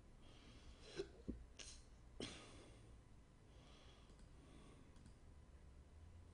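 Near silence with a few faint clicks and rustles, about four in the first half, and soft breathing.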